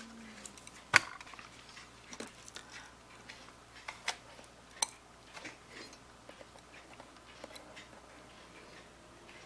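Small, sharp, irregular clicks and taps of a metal hand tool working on an open wristwatch movement while a small second hand is fitted back on; the loudest click comes about a second in.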